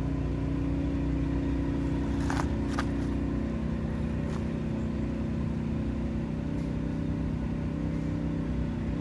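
A steady low mechanical hum, unchanging throughout, with a couple of faint brief clicks between two and three seconds in.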